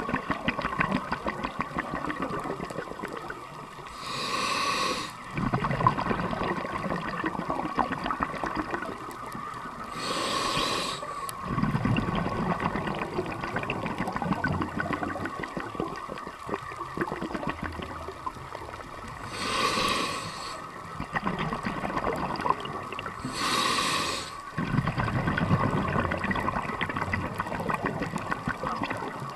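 A scuba diver breathing through a regulator underwater: four short hissing inhalations, each followed by a longer rumble of exhaled bubbles.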